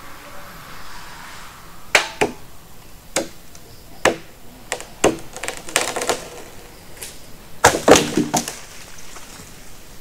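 A worker up a dead tree chopping at the wood with a machete: about a dozen sharp, irregular knocks, closer together and with a short ringing tail around the eighth second.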